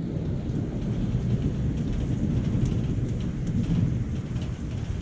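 Thunder rumbling on for several seconds, swelling and easing, over steady rain with scattered drops ticking.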